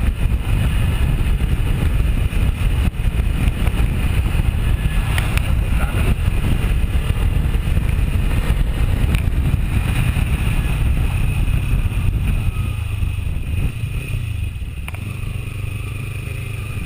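Sport motorcycle running at road speed, heard from the rider's seat as a steady engine rumble mixed with road and wind noise. It becomes quieter about thirteen seconds in.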